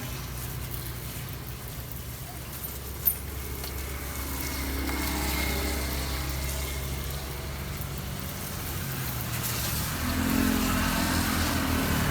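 Motor vehicles running past on the street, a low engine hum that swells and fades, with one sharp click about three seconds in and louder traffic near the end.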